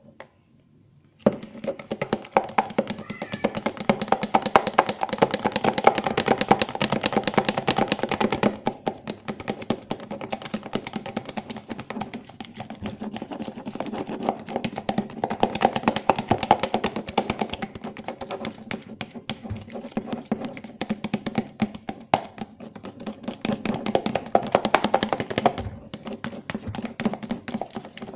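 A thick shampoo, toothpaste and salt slime mixture being stirred hard in a bowl, a fast, continuous run of wet clicks and squelches that starts about a second in.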